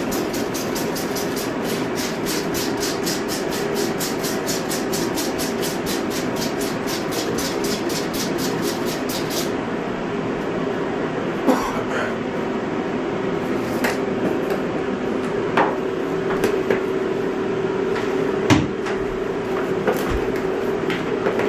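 A machine running steadily with a constant hum, fast even ticking for the first half, then a few scattered knocks.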